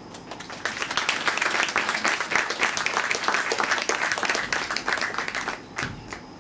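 Audience applauding: the clapping builds up within the first second, holds for about five seconds and fades out, with a few last single claps near the end.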